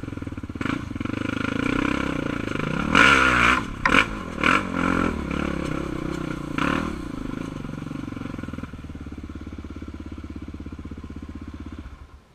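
Sport quad ATV engine through an aftermarket Big Gun exhaust, revving in several quick blips about three to five seconds in, then running steadily at lower speed before the sound cuts off near the end.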